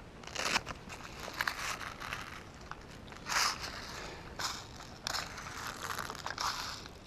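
Irregular crunching and crackling of dry brush, twigs and leaves underfoot as a person moves through undergrowth, in uneven bursts a second or two apart.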